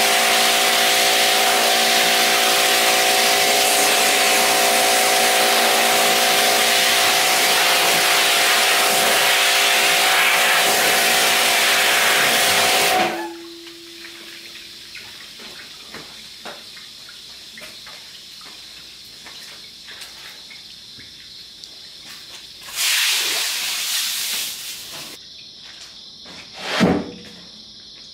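Pressure washer spraying water against the steel inside a cabinet smoker: a loud steady hiss over the pump motor's hum, which cuts off about halfway through. Near the end come a shorter hiss and a single knock.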